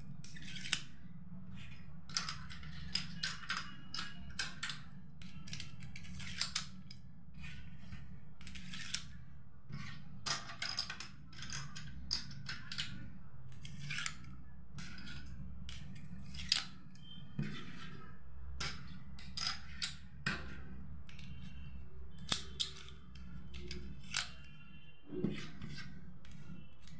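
Small plastic domino tiles clicking and clacking as they are handled and slid one by one into a toy domino train's plastic loading magazine: irregular light clicks, at times several a second, over a low steady hum.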